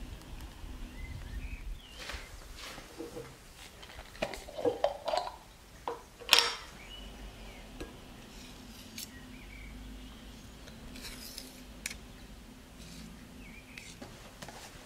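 A stainless-steel saucepan and a metal spoon knocking and clinking together, a short run of clinks with brief ringing, the sharpest about six seconds in.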